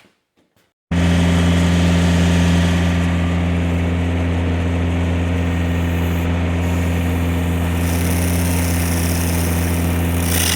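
Tractor engine running steadily and driving a Woods TSG50 PTO stump grinder, with a strong low hum. It cuts in abruptly about a second in, and a louder hiss joins near the end.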